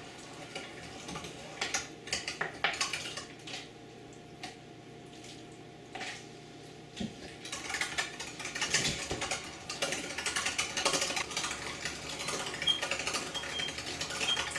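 Old hand-crank meat grinder being turned, its screw auger and cutter clicking and rattling as they tear raw gar fish meat apart. The clicks come irregularly at first and become a busier, nearly continuous clatter about halfway through.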